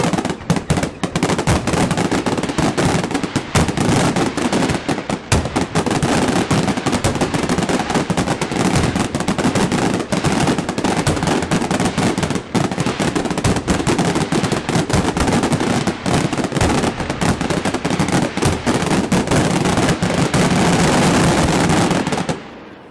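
Aerial fireworks at the finale of a closing display: a dense, rapid barrage of shell bursts and crackling that runs together into a continuous din near the end, then stops suddenly just before the end.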